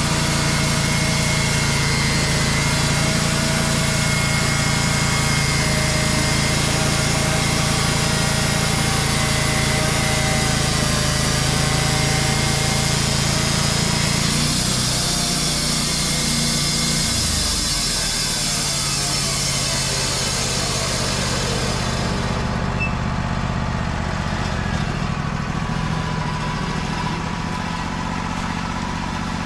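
Wood-Mizer LT35 portable band sawmill running, its band blade cutting through a large white oak log with a steady engine note and a high hiss. About halfway through, the engine note shifts. About three quarters of the way through, the high hiss of the cut stops, leaving the engine running on.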